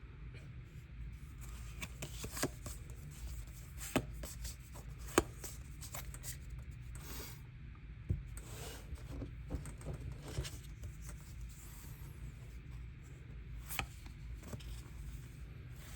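Pokémon trading cards being handled and slid against each other, with light rubbing and scattered small ticks and taps, over a low steady hum.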